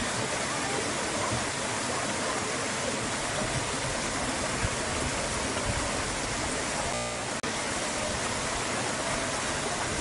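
Creek water running and splashing over and between boulders, a steady rushing that briefly cuts out about seven seconds in.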